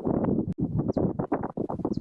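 Wind buffeting the microphone in a snowstorm: a loud, rough, gusty rumble that pulses irregularly.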